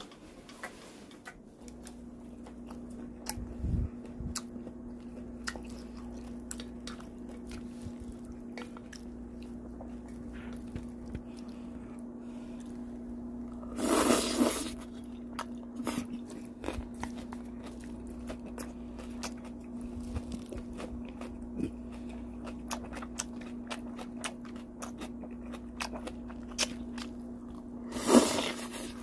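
Chewing and crunching of crisp seasoned vegetable salad and pork belly, with many small crunchy clicks, over a steady low hum. There are two louder rustling bursts, one about halfway through and one near the end.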